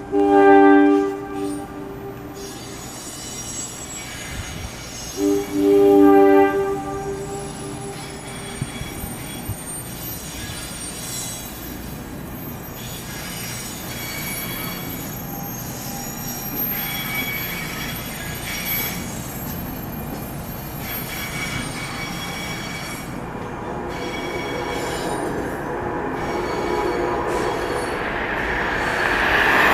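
Amtrak ACS-64 electric locomotive's horn sounding a long blast, then a second one about five seconds later, as an express train approaches. A steadily growing rumble of the oncoming train follows, with a thin high squeal from wheels and rails, getting loudest near the end as the train reaches the station.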